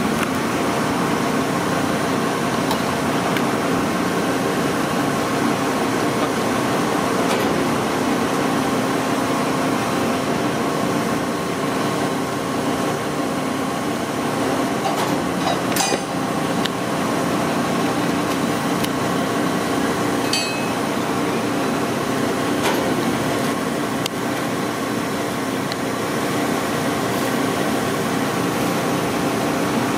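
A machine running steadily: a constant drone with several held tones. Two faint clicks come a little past the middle.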